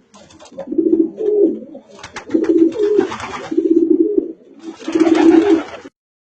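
Pigeon cooing: about five low, rolling coos in a row, which stop abruptly near the end.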